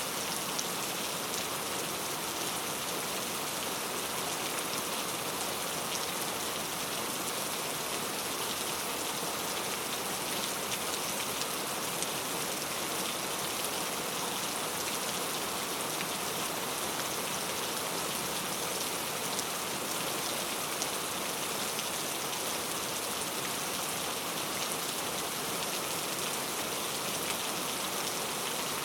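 Heavy rain falling steadily on a camping tent: an even hiss with scattered drop ticks.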